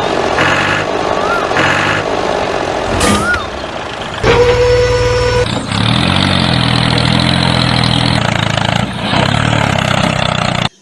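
Truck engine running steadily, with a horn sounding for about a second near the middle and brief squealing glides earlier on.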